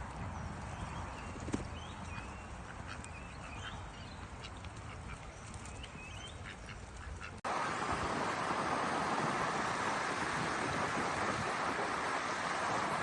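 Bird calls, short chirps over a low rumble, up to an abrupt cut about seven seconds in. After the cut comes a louder, steady rushing noise.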